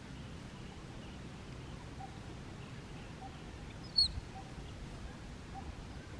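A single short, high-pitched animal chirp about four seconds in, over a faint steady outdoor background with soft repeated notes.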